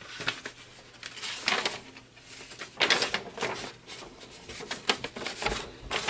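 A sheet of paper being picked up and handled: irregular rustling and crinkling with a few light clicks, loudest about three seconds in.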